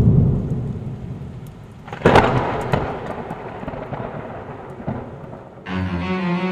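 Thunder over steady rain: a deep rumble at the start, then a sharp crack about two seconds in that rolls away. Near the end, low bowed-string music begins.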